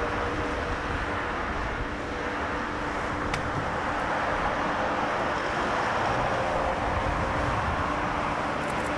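Jet engines of a Boeing 787-9 at takeoff power, a steady rumbling roar with a faint steady hum in it, growing slightly louder in the second half. A single brief click about three seconds in.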